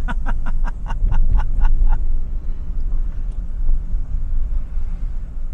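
Low, steady road and engine rumble inside a car moving slowly. During the first two seconds a quick run of about a dozen short pitched sounds, about seven a second, rises above it.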